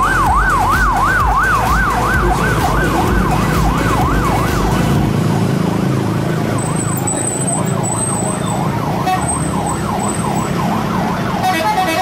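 A bus's 'telolet' horn wailing like a siren, its pitch sweeping up and down about three times a second: loud for the first five seconds, then fainter. Near the end it switches to a stepped multi-note horn tune.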